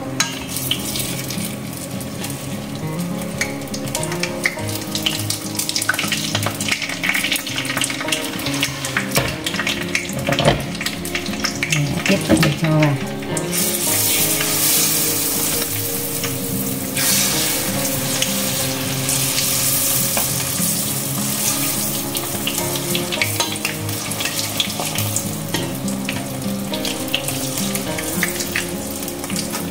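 Spring rolls (nem rán) deep-frying in hot oil in a small pan, a steady sizzle. About fourteen seconds in, another roll goes into the oil and the sizzle turns louder and sharper for a few seconds before settling back.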